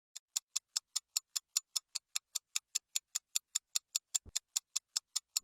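Clock-tick countdown sound effect: rapid, evenly spaced ticks, about five a second.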